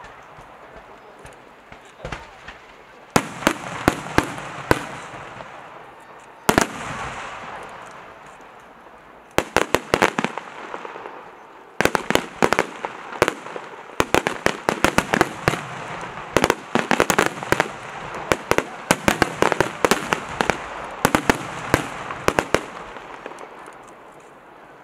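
Aerial fireworks shells bursting in volleys of sharp bangs and crackles, each volley fading in a crackling tail, building to a dense, near-continuous barrage through the second half before easing off near the end.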